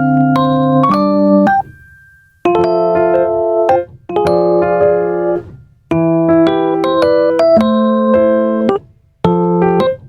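Background music: an electric-piano melody played in short phrases with brief pauses between them.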